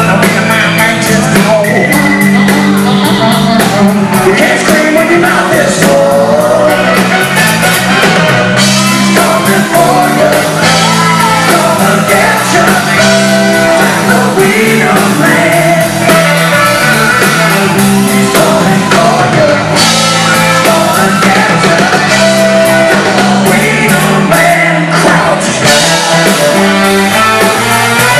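Live band playing loud funk-rock: electric guitars, bass, drum kit and saxophones, with sung lead vocals and shouted backing lines.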